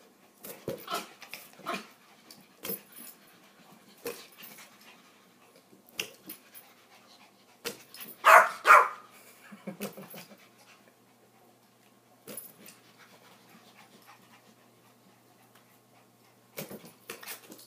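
Yorkshire terriers playing, panting and scuffling, with scattered short knocks and two loud barks close together about eight seconds in.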